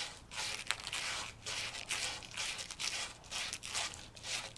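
Sandpaper rubbed back and forth over the end of a 3/8-inch copper pipe, a rasping scrape in even strokes about two a second, roughing up and cleaning the copper before soldering.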